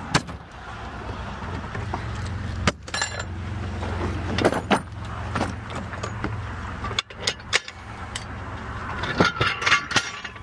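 Metal tools clinking and knocking as they are handled, a dozen or so separate sharp clanks with a cluster of them near the end, over the steady low hum of an idling vehicle.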